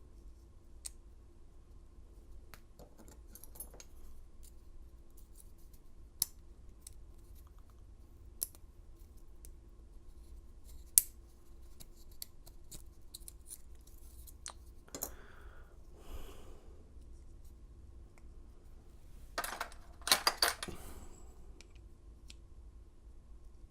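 Small metal clicks and scrapes of hand tools working on a disassembled padlock, scattered sharp ticks throughout, with a couple of short scrapes past the middle and a louder cluster of clicking and scraping near the end.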